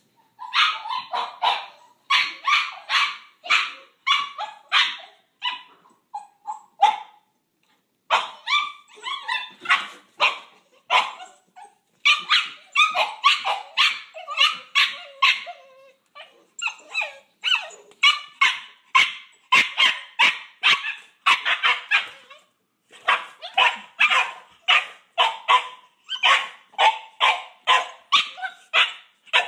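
Two Boxer puppies barking at each other in rapid runs of short barks, broken by brief pauses, as they squabble over a pig ear chew.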